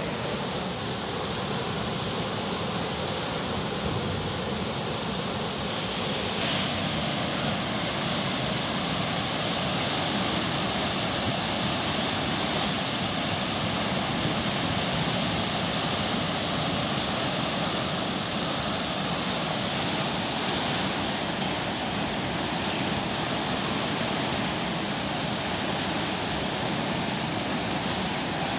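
Canal floodwater rushing and churning through the arches of a brick bridge, a steady rush of turbulent water with no change in strength.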